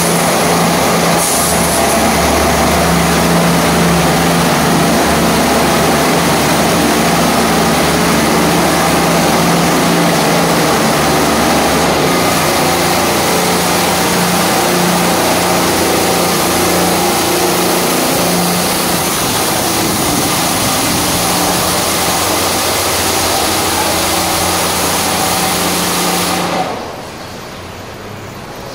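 PDQ ProTouch Tandem automatic car wash running over a car: a loud, steady hiss of water spray and spinning cloth brushes over a low motor hum. The noise drops away sharply near the end.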